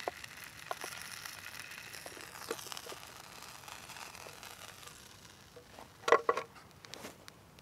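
Meat frying in oil in a pan on a Trangia alcohol stove, the sizzle fading over the first few seconds as the meat is lifted out. About six seconds in, a brief clatter of sharp knocks, the loudest sound.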